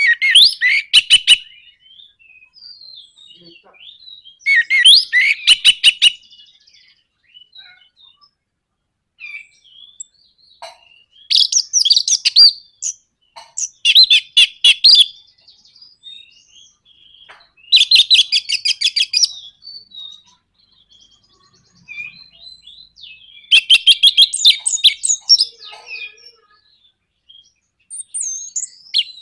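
Orange-headed thrush (anis merah) giving bursts of harsh, rapid rattling 'nraktak' notes, each burst about a second and a half long, repeated every few seconds.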